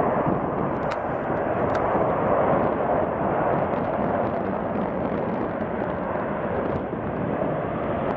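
Airbus A400M's four Europrop TP400-D6 turboprop engines and propellers running with a loud, steady noise as the aircraft rolls along the runway.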